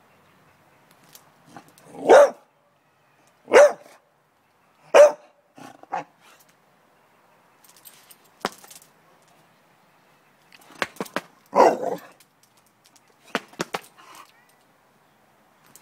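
American Staffordshire terrier barking in excited greeting: three loud single barks a second or so apart, a few softer short sounds, then another burst of barks about eleven to twelve seconds in and a couple more near the end.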